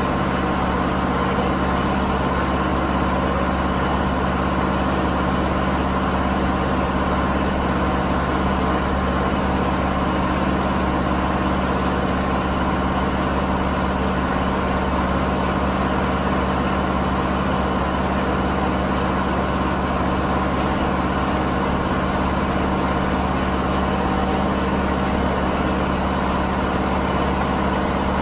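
Zetor 7011 tractor's four-cylinder diesel engine running at steady revs while the tractor drives along, heard from the driver's seat just behind the bonnet.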